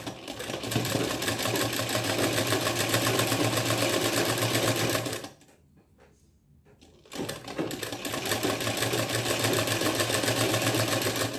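Black straight-stitch sewing machine running, its needle going fast and steadily as it sews a straight seam through two layers of muslin. It stops for about two seconds around the middle, then runs again.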